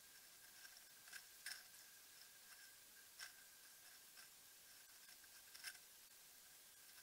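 Near silence: a faint steady hiss with a thin high whine, broken by a few faint sharp clicks, two about a second and a half in, one near three seconds and one near six seconds.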